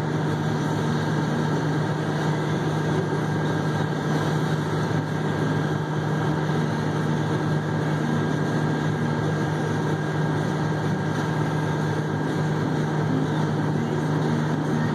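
Haul truck's diesel engine idling steadily with a constant low hum, heard from inside the cab while the truck stands still.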